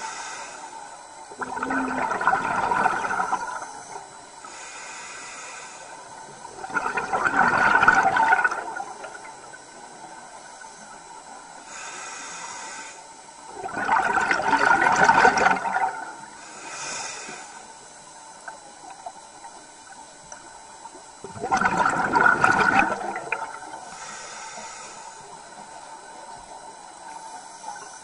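Scuba diver breathing underwater through a regulator: four loud rushes of exhaled bubbles about every 6 to 7 seconds, with a fainter hiss of inhalation between them.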